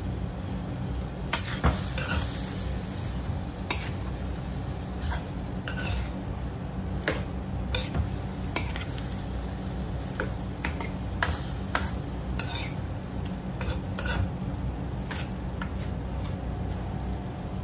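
A metal ladle stirs pork and vegetables in a wok, clinking and scraping against the pan at irregular intervals. The clinks stop near the end, over a steady low hum.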